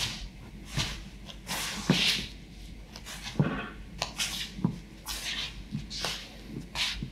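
Footsteps on a wooden parquet floor: sneaker soles stepping, twisting and scuffing as a person pivots on the balls of the feet, short scrapes and soft thuds about one or two a second, irregularly spaced.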